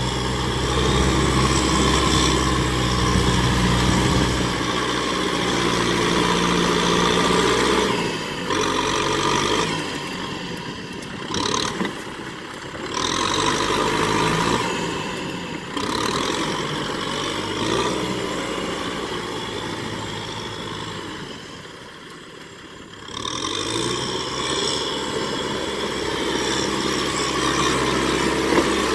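Kubota M6040SU tractor's four-cylinder diesel engine working hard as the tractor churns through deep mud. Its sound swells and eases with the throttle, dropping off briefly several times, most deeply a little over three-quarters of the way through.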